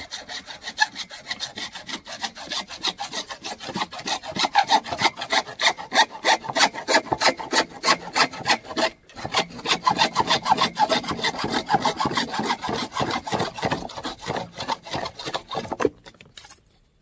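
Hand saw cutting through 4-inch thin-wall PVC pipe in quick, even back-and-forth strokes, sawing off the pipe's bell end. The sawing breaks off briefly about nine seconds in, then goes on and stops about a second before the end.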